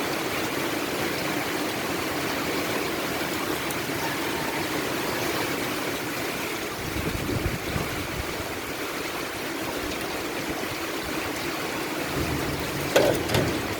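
Steady rain falling: a constant, even hiss. There is a brief low rumble about halfway, and a couple of sharp knocks near the end.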